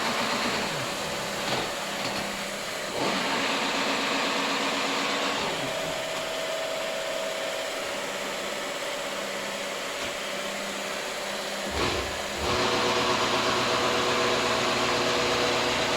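Huron MU 5 milling machine's axis drive running in rapid traverse, a steady mechanical hum with a whine that changes several times as moves start and stop.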